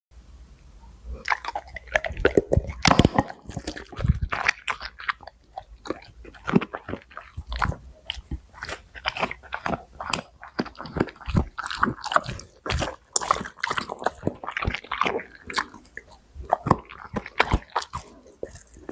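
Dog eating its food close to the microphone: rapid, irregular bites and chewing, starting about a second in.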